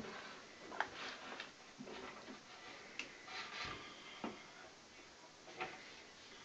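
Faint, scattered clicks and light knocks, roughly a second apart, from hands working on the pipes and fittings under a kitchen sink.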